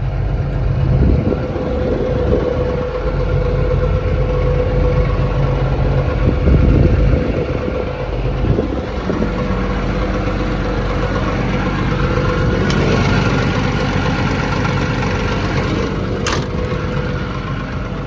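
XCMG XE210 excavator's Cummins diesel engine idling steadily, with a single sharp knock about sixteen seconds in.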